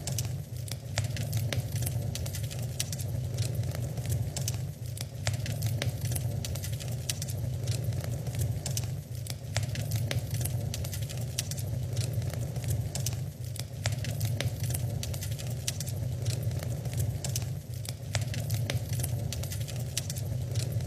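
Wood fire burning in an open fireplace, crackling with many small sharp pops and snaps over a steady low rumble of the flames.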